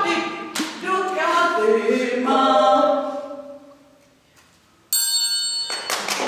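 Unaccompanied voices singing a short melody in held notes, the last note fading out about three and a half seconds in. After a brief pause a bright ringing tone starts suddenly, followed near the end by a burst of noisy sound.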